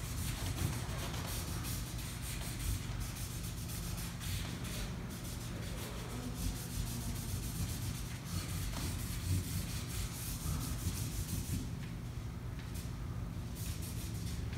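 Felt-tip marker pens rubbing and scratching across paper in irregular colouring strokes, over a steady low hum.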